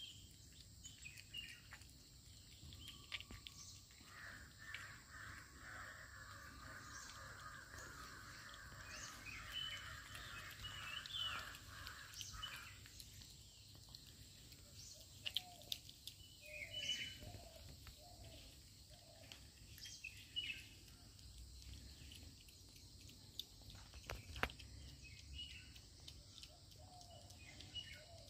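Faint outdoor bird calls and chirps, with a stretch of denser chatter in the first half, and a few sharp clicks and taps from a dog eating out of a stainless steel bowl.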